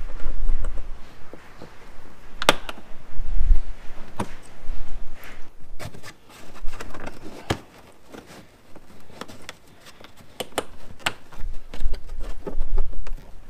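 Scattered sharp plastic clicks and knocks as pop rivets and clips are pried out of a car's plastic inner fender liner, with a few low thuds in between.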